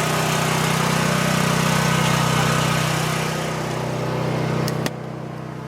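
LPG-fuelled backup generator engine running steadily. Near the end come two sharp clicks, and the engine sound then drops, quieter and duller.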